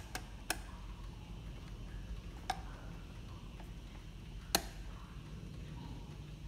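A few sharp, isolated metal clicks, the loudest about two-thirds of the way through, as small parts of an Odo 58 chiming clock's brass movement are handled, over a faint steady low hum.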